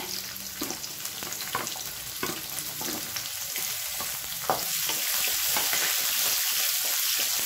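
Chopped onions sizzling in hot oil in an aluminium kadai, with a few light knocks of a wooden spatula pushing them off a steel plate. The sizzle grows louder about halfway through as the onions are stirred into the oil.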